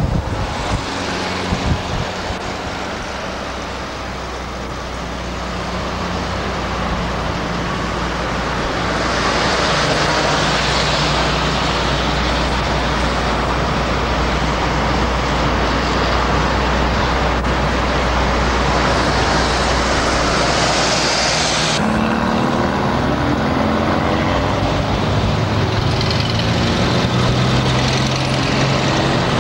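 Engine and road noise heard from inside a moving vehicle in city traffic: a steady hiss over a low engine hum. About three-quarters of the way through the hiss drops away suddenly, leaving the engine hum clearer.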